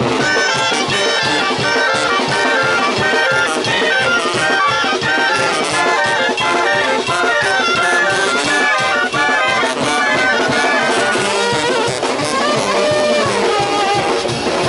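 Oaxacan brass band playing live: clarinets carrying a quick melody over sousaphones, trombones and trumpets.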